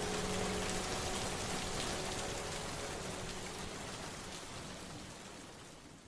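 Recorded rain falling steadily, fading out gradually and dying away at the very end.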